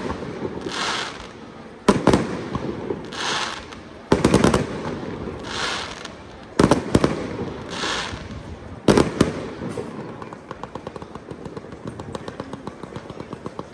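Fireworks display: aerial shells bursting with four loud bangs about two seconds apart, each trailing off in a crackle, with a short hiss between bangs. From about ten seconds in, a fast run of small pops takes over.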